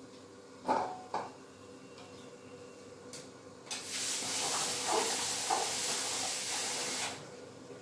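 A kitchen tap runs into a vessel for about three and a half seconds, a steady water hiss, while koorka (Chinese potatoes) are being washed. A couple of dish clinks come about a second in.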